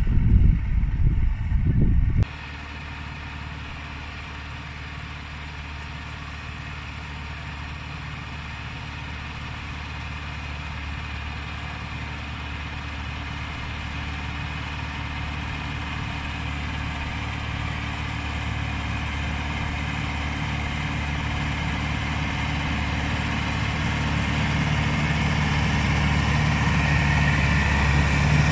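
A loud low rumble for about two seconds, then a sudden change to a Case CX80 tractor's diesel engine running at a steady speed. The engine grows gradually louder toward the end.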